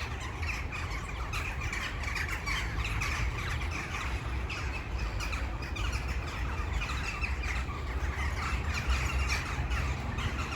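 A large flock of birds calling all at once, with many short calls overlapping in a continuous chatter. A steady low rumble runs underneath.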